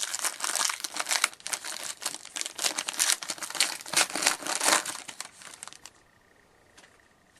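Foil wrapper of a hockey card pack being torn open and crumpled: a dense crinkling for about six seconds that then stops.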